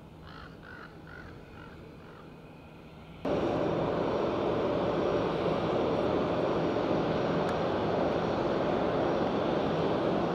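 Jet airliner engines running as a steady, loud rush, which cuts in suddenly about three seconds in after a quieter stretch with a few faint chirps.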